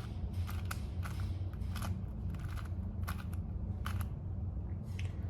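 4x4 Rubik's cube being turned by hand through the edge-flipping algorithm: a quick, irregular series of about ten plastic clicks and clacks as its layers snap into place, over a steady low hum.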